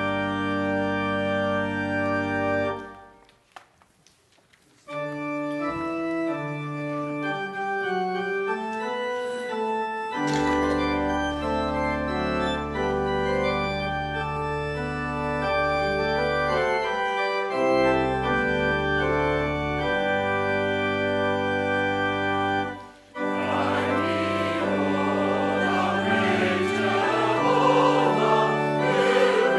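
Church organ playing held chords. It stops for about two seconds near the start, then plays on with changing chords. About 23 seconds in, a choir begins singing over the organ accompaniment.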